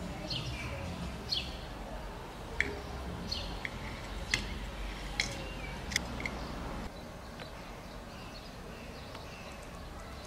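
Birds chirping over a steady low rumble of background noise, with a scatter of sharp ticks through the first seven seconds; after that it drops a little quieter, leaving only faint chirps.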